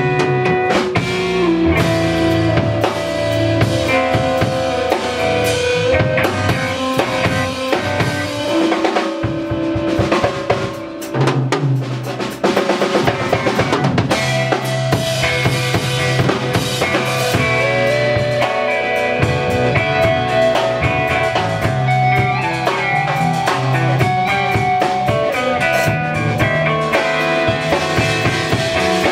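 Live band music: a drum kit playing a steady beat under a bass line and held melodic notes. About ten seconds in the bass drops out for a quick run of drum strokes, then the full band comes back in.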